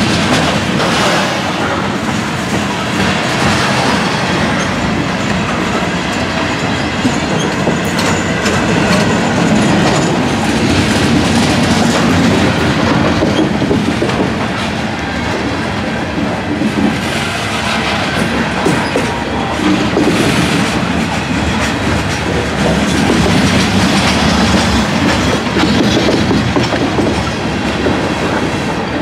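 Freight train of covered hopper cars rolling past at close range: a steady rumble of steel wheels on rail with clickety-clack over the rail joints.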